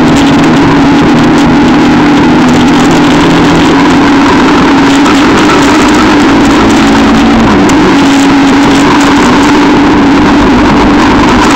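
Quad bike (ATV) engine running steadily under way, its note dipping briefly about seven and a half seconds in, over a constant rush of noise.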